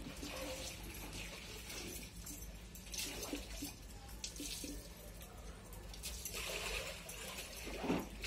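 Fingers mashing and mixing food in a small steel bowl, with soft, wet, scattered eating sounds.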